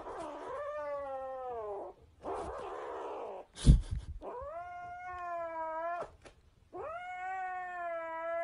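Kitten yowling in three long, drawn-out cries, with a noisy hiss-like stretch between the first two. A sharp thump a little under four seconds in is the loudest sound.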